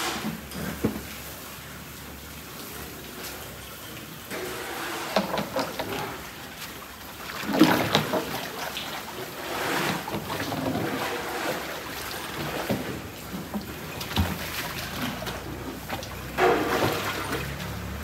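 Water-soaked cattle feed sloshing in a large round tub as it is stirred with a long wooden pole, in several surges. Near the end a bucket is dipped in and filled.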